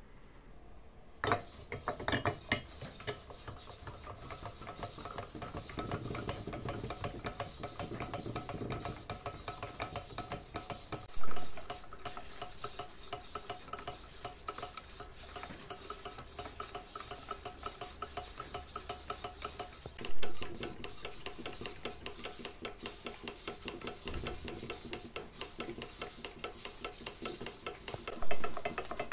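Quick, continuous scraping and rubbing strokes on metal, as in hand-working a part during a pump restoration, with three louder knocks about nine seconds apart.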